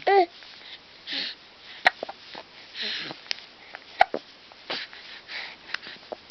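A baby hiccuping: a few sharp, short hiccups with soft breathy sniffs and breaths between them, after a brief little vocal sound at the start.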